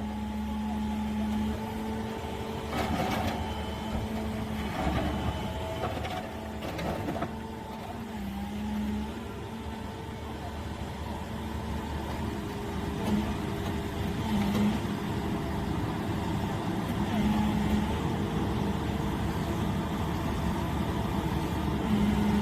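Excavator diesel engine running under load while driving a hydraulic side-grip vibratory pile driver: a steady mechanical drone with a constant hum, and a few short knocks a few seconds in.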